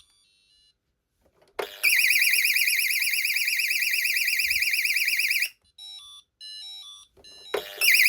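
Intruder alarm sounder on a 1990s Pyronix Paragon Super system, a loud high-pitched tone warbling rapidly. It starts about two seconds in, cuts off after about four seconds and starts again near the end, with a few short electronic beeps in the gap. The owner puts its odd behaviour down to a faulty panel.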